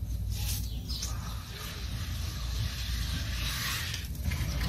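A hand tool scraping and rubbing wet cement mortar while a column corner is shaped. The noise is continuous, broken by a brief pause about four seconds in, over a low rumble.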